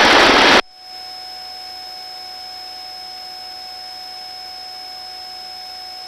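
Helicopter crew intercom line: a loud burst of open-mic noise cuts off suddenly about half a second in, leaving a steady faint hiss with a few steady electronic tones while the channel is idle.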